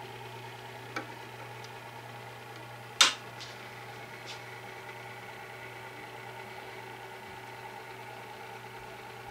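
Electric motor of a display turntable humming steadily as it rotates. A sharp click comes about three seconds in, with a fainter one about a second in.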